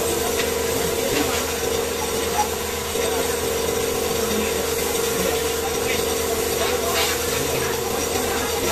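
Compressed-air paint spray gun hissing steadily as it sprays, with a steady hum underneath.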